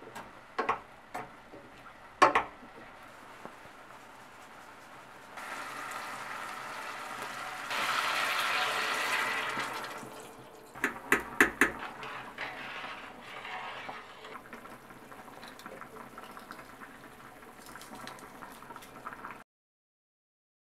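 A wooden spoon stirring in a stainless-steel stock pot, knocking against the pot a few times. From about five seconds in, water is poured into the pot, loudest for about two seconds before it tails off. A quick run of knocks follows, then quieter kitchen sounds until the audio cuts off abruptly near the end.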